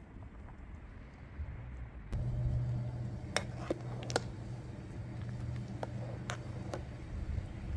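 A metal ladle stirring a large metal pot of steaming soup, clinking sharply against the pot about six times. Under it runs a steady low hum.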